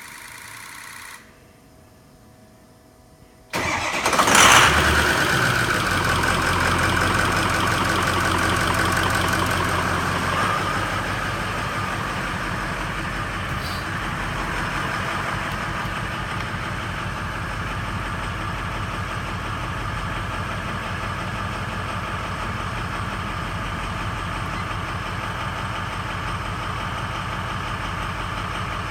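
2003 Ford F-250's 6.0L Powerstroke V8 turbo-diesel shut off about a second in, then cranked and started a couple of seconds later, running at a raised idle before settling to a lower idle about ten seconds in. The engine misfires or runs rough at idle.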